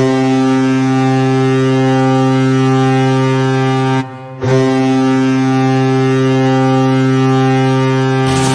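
Colorado Avalanche 2016 NHL arena goal horn: a deep, steady horn blast sounding twice, each about four seconds long, with a short break of about half a second between them.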